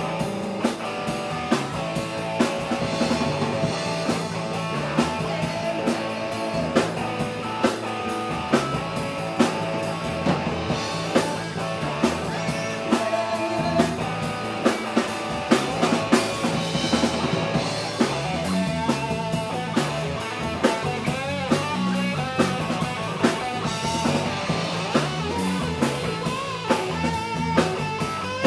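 Live rock band playing: electric guitar and electric bass over a drum kit keeping a steady beat, with regular sharp drum hits.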